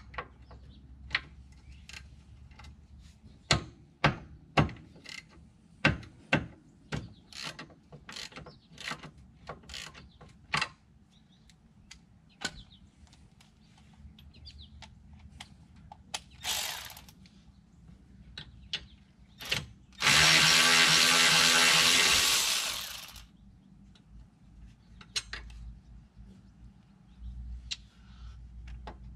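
Irregular sharp clicks of a hand ratchet and metal tools working the brake caliper bracket bolts. About twenty seconds in, a power tool runs loudly for about three seconds and then winds down.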